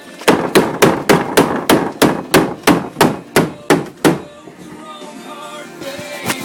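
A run of about a dozen sharp, evenly spaced knocks, about three a second. They stop about four seconds in, and quieter tones follow.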